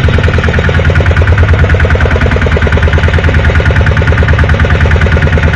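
Fishing boat's engine running steadily with a fast, even pulsing beat.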